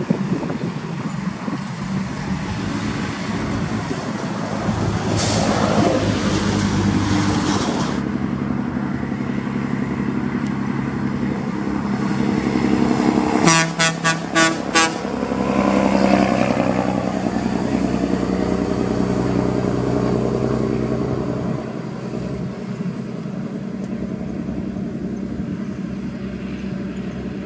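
Volvo N10 truck's diesel engine running as the truck drives past on the highway. About halfway through, its horn sounds a quick run of about five short toots.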